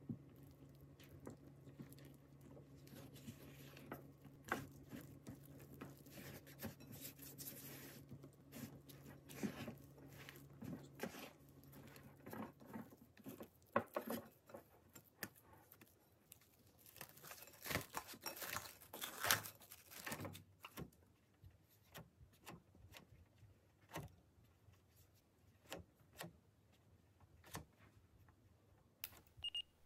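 Silicone spatula stirring flour and water into a wet, sticky bread dough in a glass bowl: faint irregular scrapes, taps and soft wet slaps, in denser bursts through the middle.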